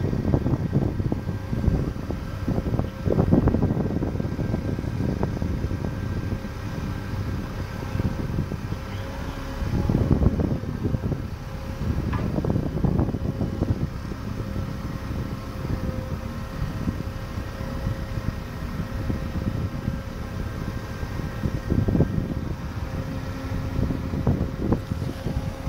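Mobile crane's diesel engine and hydraulics running steadily with a constant whine as a 55-tonne wind turbine nacelle is hoisted, with wind buffeting the microphone in gusts.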